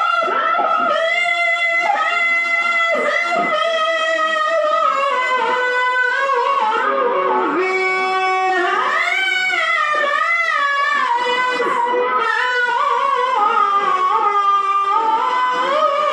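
A qori reciting the Quran in melodic tilawah style: one loud solo voice holding long notes with wavering, ornamented turns, and no accompaniment.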